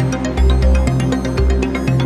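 Ambient electronic music played on synthesizers: a sequenced arpeggio of short repeating notes over sustained pad chords, with a deep bass note about once a second.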